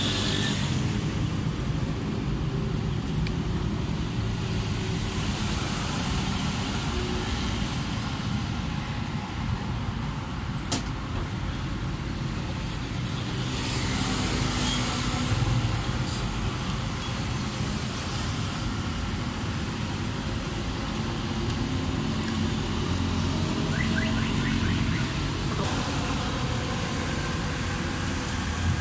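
A motor vehicle engine running steadily, with a few sharp clicks over the top.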